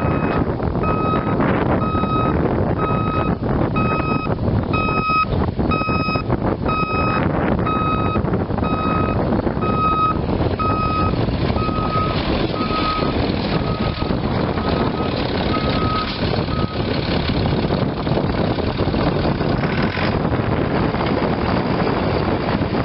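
Vehicle backup alarm beeping steadily about once a second, each beep short and single-pitched, stopping about seventeen seconds in, over a steady rush of wind on the microphone.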